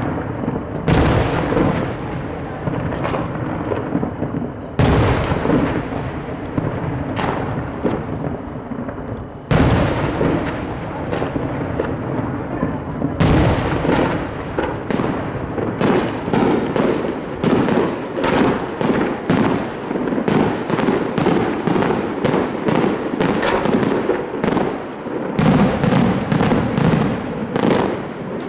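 Fireworks display: four heavy booms a few seconds apart, each trailing off with a long echo, then from about halfway a rapid volley of sharp cracks, several a second.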